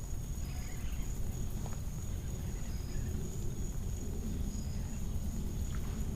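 A continuous high insect trill, like crickets or cicadas, with a few short faint chirps and a steady low rumbling noise beneath.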